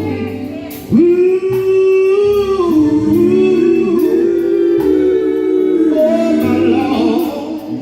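Men's gospel group moaning: long, wordless held notes sung in close harmony over a band with a steady beat. The voices swell back in about a second in and slide slowly between notes.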